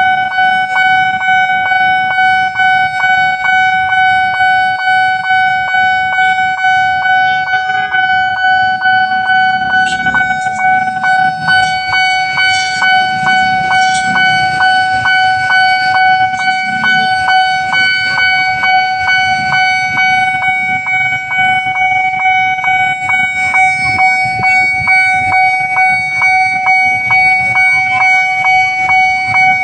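Railway level-crossing warning alarm sounding: a loud electronic tone with overtones, pulsing in a steady rhythm without a break, the signal that a train is approaching. A low rumble sits beneath it around the middle.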